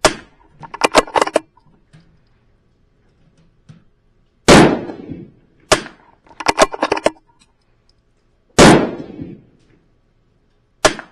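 .22 LR rifle firing SK semi-auto rimfire rounds: three sharp shots about four seconds apart, each dying away within a second. Between the shots come quick runs of metallic clicks as the action is worked, with one more click near the end.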